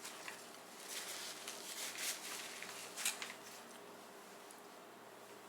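A person chewing a mouthful of pad Thai close to the microphone, with soft, wet bursts about a second apart, loudest about three seconds in.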